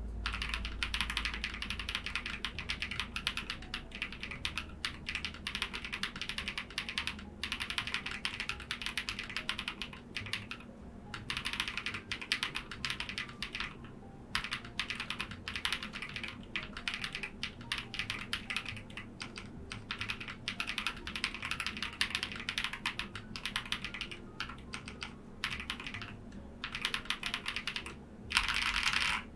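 Steady typing on a CIY GAS 67 65% mechanical keyboard fitted with lubed Holy Panda switches, in a gasket-mounted, tape-modded plastic case with foam and PE-sheet dampening. Rapid runs of keystrokes are broken by a few short pauses.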